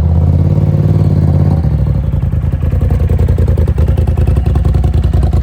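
Engine running loudly with a fast, steady throb; its pitch drops a little about one and a half seconds in.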